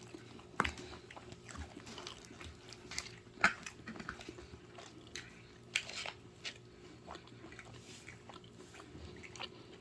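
A person biting and chewing pizza close to the microphone, with scattered crisp crunches and mouth clicks.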